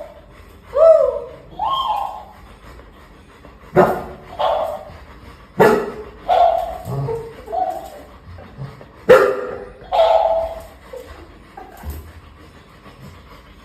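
Talking toy giving about a dozen short, high-pitched yelps at uneven intervals, some gliding up or down in pitch.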